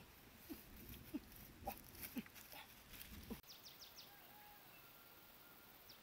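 Faint footsteps crackling through leaf litter and twigs, with a few short low squeaks. After an abrupt change partway through, a bird gives a quick series of four high, falling chirps and some faint thin whistles, and starts chirping again near the end.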